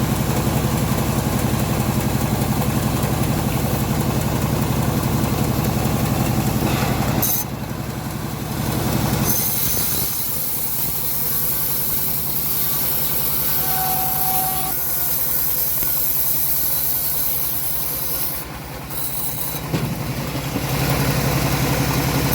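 Homemade engine-driven bandsaw running steadily while sawing teak, a low engine drone under the hiss of the blade in the wood. The sound drops a little about seven seconds in, and the hiss grows and fades several times as the cut goes on.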